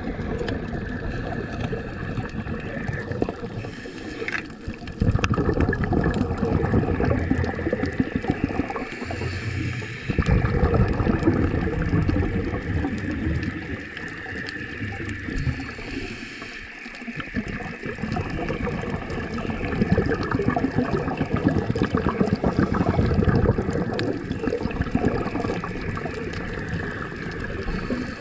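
Underwater water noise around the camera: a continuous gurgling, sloshing rush with a low rumble that swells louder for a few seconds at a time.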